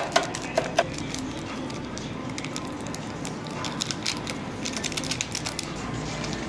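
Plastic seasoning sachets crinkling and crackling as they are torn open and shaken out over dry instant noodles in a paper cup, after a few sharp clicks in the first second.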